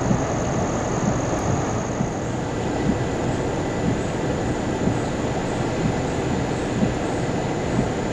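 Floodwater of a creek in flash flood rushing steadily, a continuous noisy roar with no let-up.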